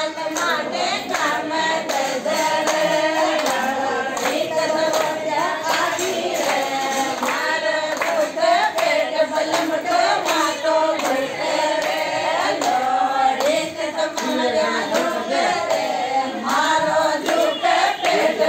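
Group of voices singing a traditional wedding song together, with hands clapping along through it.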